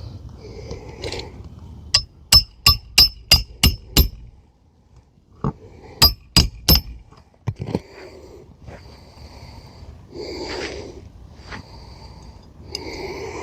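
Hammer driving roofing nails through an asphalt shingle into the roof decking, in sharp ringing blows: a quick run of about seven, then after a pause a single blow and three more. Softer scraping follows later on.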